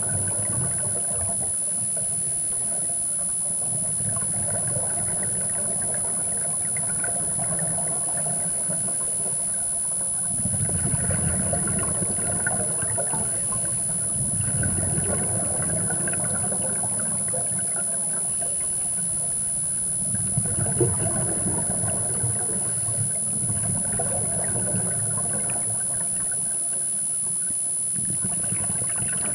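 Scuba breathing heard through an underwater camera housing: muffled rushes of exhaled regulator bubbles swelling every few seconds over a dull rumble, with a steady high whine.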